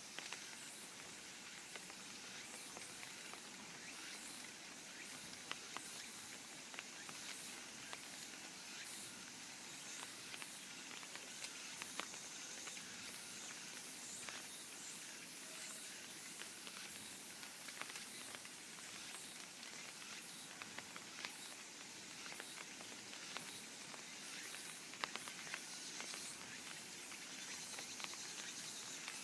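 Cicadas buzzing in a faint, steady high hiss, with light rain pattering in many scattered drop clicks.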